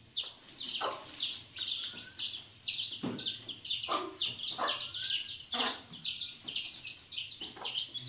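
Chickens: an unbroken run of high, short, falling peeps, several a second, with a few lower clucks mixed in.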